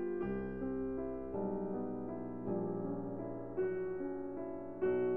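Soft piano music, a new note or chord struck about once a second.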